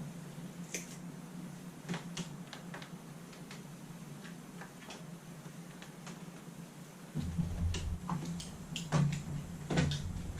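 Wire cutters and handling of electrical hookup wire: scattered light clicks and snips over a steady low hum. Heavier bumps and rumbling handling noise come in about seven seconds in.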